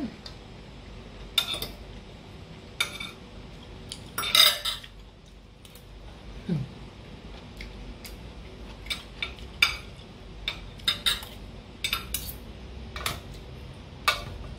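Metal spoon and fork scraping and clinking against a stainless steel serving bowl and a ceramic plate while food is served and eaten: a dozen or so sharp separate clinks, the loudest a quick cluster about four seconds in.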